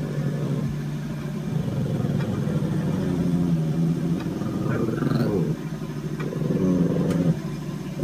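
Small curly-coated dog growling at its own reflection in a mirror: a low, continuous growl in long stretches, broken off briefly twice.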